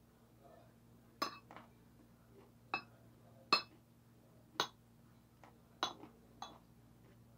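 Metal fork clinking and scraping against a ceramic plate while picking up food: several short, sharp clinks, irregularly spaced about a second apart.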